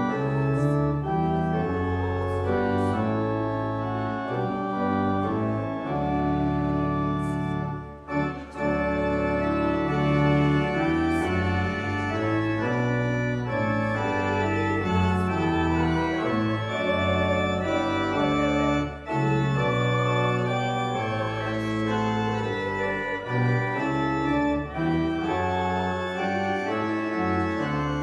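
Church pipe organ playing a slow run of sustained chords that change about once a second.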